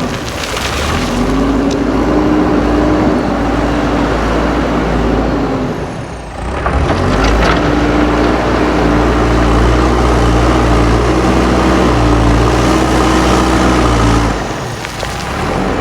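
JCB 4x4 backhoe loader's diesel engine running hard while leveling soil. The engine note sags briefly three times, at the start, about six seconds in and near the end, and picks back up each time as the machine takes load.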